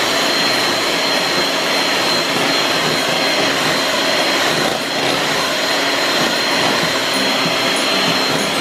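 Electric hand mixer running steadily at speed, its beaters whipping a foam in a glass bowl, with a constant high motor whine.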